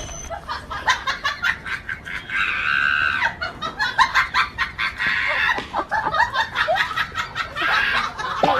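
Chickens clucking and squawking in a run of short, choppy calls, with one longer held squawk about two and a half seconds in.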